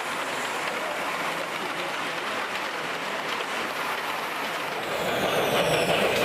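Large-scale model train rolling along its track: a steady rushing clatter of wheels on the rails. The sound gets louder and fuller about five seconds in.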